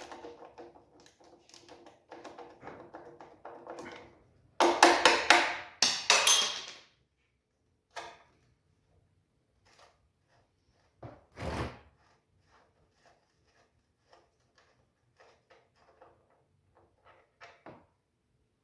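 Metal tools and parts being handled on an old car engine: light clicking, a loud rattling scrape about five seconds in, a single thunk near the middle, then scattered faint ticks.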